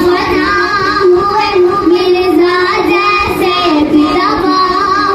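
A young girl singing an Islamic devotional song (naat) into a microphone, in long held notes that waver and glide between pitches.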